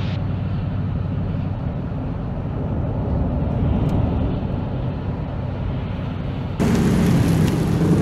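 Steady road rumble of a car driving on a highway, heard from inside the cabin: engine and tyre noise. About six and a half seconds in it cuts to the louder engine of a pickup truck pulling a boat trailer close by.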